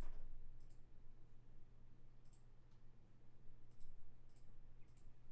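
A computer mouse clicking about five times, faint and irregularly spaced, over a low steady hum.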